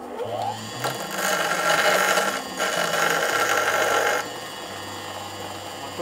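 Bench grinder with a small metal piece pressed by hand against its stone wheel: loud grinding from about a second in, briefly broken near the middle and easing off about four seconds in, over background music.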